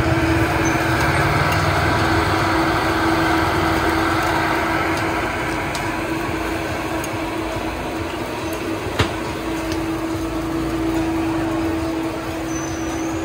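Steady hubbub of a busy street market with traffic, under a constant low hum; one sharp click about nine seconds in.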